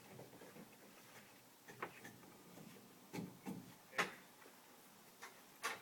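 Scattered knocks and clunks of objects being handled and set down, about six of them spread irregularly, the loudest about four seconds in.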